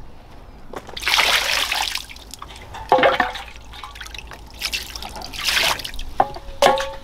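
Water splashing in several short bursts as live fish thrash in a plastic basin of water, with a couple of short squeaky tones among the splashes.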